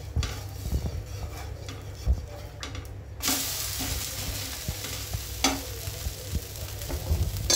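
Thin batter crepe (choi roti) on a hot iron tawa. A few light taps and scrapes of a steel spatula, then about three seconds in a sudden, steady sizzle as the crepe is turned onto its other side. Another sharp spatula scrape follows a couple of seconds later.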